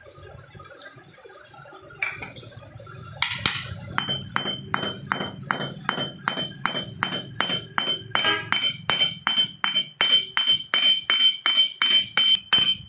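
Steady hammer blows on a metal part, about three a second, each ringing with a high metallic tone; they begin about four seconds in and grow louder.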